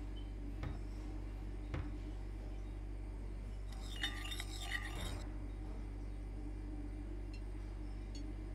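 Tableware clinking: a short cluster of light glass-and-dish clinks about four seconds in, after a couple of faint knocks, over a steady low hum.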